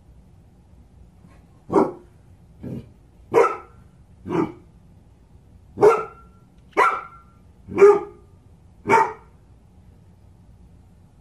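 A dog barking eight times, about a second apart, the second bark softer than the rest.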